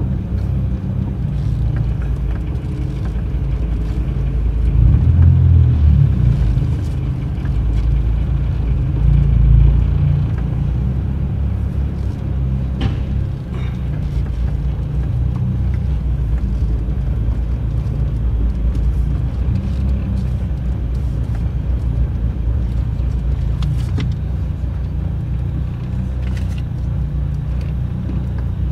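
Car engine and tyre rumble heard from inside the cabin as the car drives along, a steady low rumble that swells for a moment about five and nine seconds in, with a few faint clicks.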